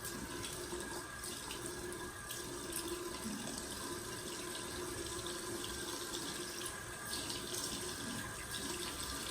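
Cold water running steadily from a sink tap for a post-shave face rinse.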